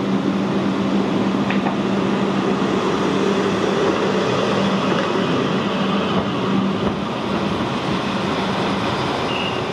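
A new E5 series Shinkansen car rolling slowly past on rails, a steady running noise of wheels and running gear over a constant low hum.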